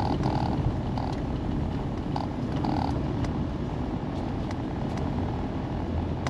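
Steady engine and road noise from a vehicle driving along, a continuous rumble with hiss. A few short high tones sound in the first three seconds.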